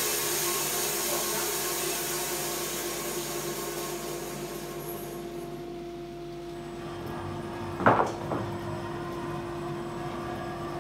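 Wood-Mizer LT15 portable bandsaw mill running with a steady hum; a high hiss fades away over the first half. About eight seconds in come two sharp knocks close together, the first the louder.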